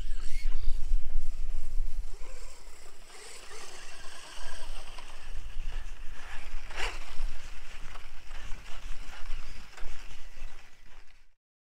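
Wind buffeting the microphone, heaviest at first, mixed with a Reely Eraser electric RC car running over grass, with one sharp knock about seven seconds in. The sound cuts off just before the end.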